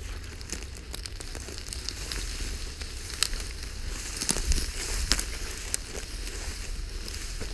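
Dry grass and brush rustling and crackling underfoot as a walker and a leashed wolf push through tall dry grass, with a few sharp snaps around the middle and a steady low rumble underneath.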